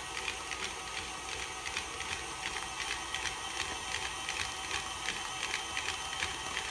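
KitchenAid stand mixer running, beating a thick paste of fish roe and bread in a stainless steel bowl: a steady motor whine with a regular clicking a few times a second as the oil is worked in to emulsify the tarama.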